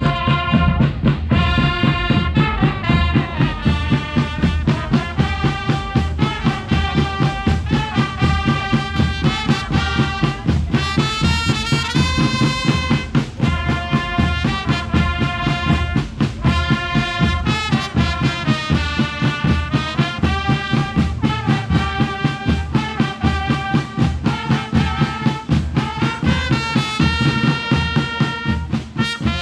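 Marching brass band with drums playing live, a brass melody over a steady drum beat of about two beats a second.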